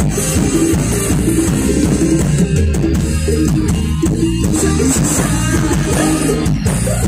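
Live mor lam band music played loud through a stage sound system, with a steady drum beat under keyboard.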